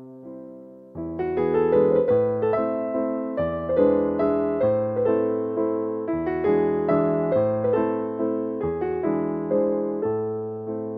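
Background piano music: a gentle melody of struck notes over repeating bass notes, quieter for the first second, then fuller.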